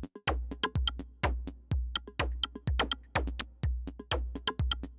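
Electronic intro music with a drum-machine beat: a deep, bass-heavy kick about once a second with quicker percussion hits and short synth notes between them.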